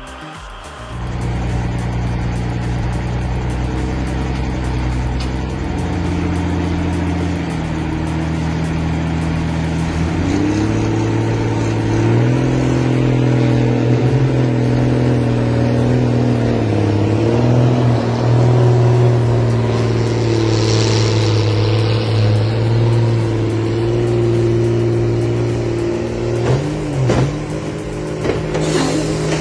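A heavy machine's engine running, with its pitch and loudness rising under load about ten seconds in and holding there, and some sharp knocks near the end.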